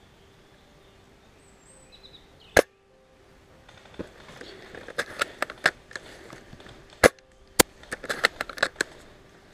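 Airsoft guns firing: one loud, sharp shot crack about two and a half seconds in, then a scattered run of sharp cracks and clicks from about four seconds on, with a quick cluster of them near the end.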